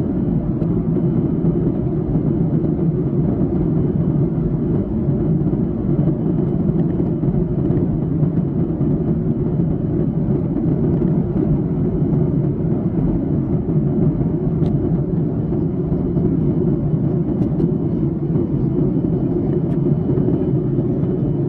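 Steady cabin rumble inside a Boeing 737-800 airliner: engine and air noise heard from a passenger seat, even and unchanging, with a faint high steady tone above it.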